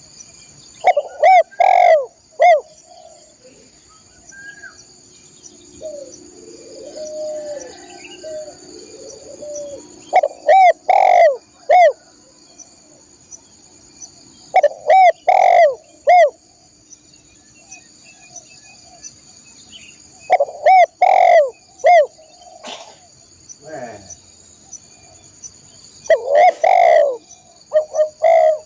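Spotted dove cooing loudly: five phrases of several notes each, a few seconds apart, with a softer coo between the first two. A steady high insect drone runs underneath.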